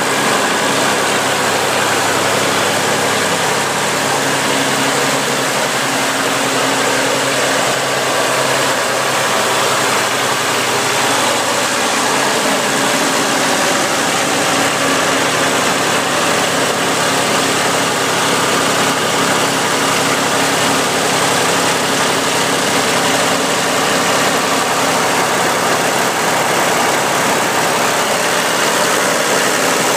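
Massey Ferguson 35X tractor's three-cylinder Perkins diesel engine idling steadily.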